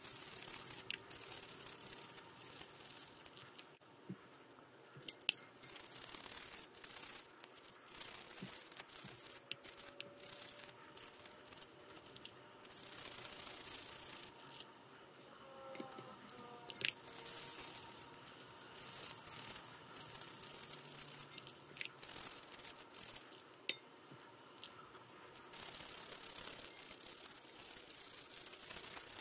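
Toothbrush bristles scrubbing small plastic puzzle pieces in soapy water, in stretches of brushing with short pauses between. Small plastic clicks as the pieces knock against each other and the bowl, with one sharp click about three-quarters of the way through.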